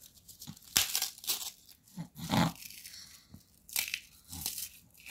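Hard, dried bread being crumbled between the fingers into breadcrumbs, giving irregular dry crunches and crackles.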